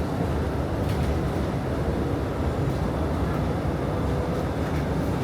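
Steady low rumble of a city bus's engine and road noise, heard from inside the cabin while the bus travels, with a few faint light ticks.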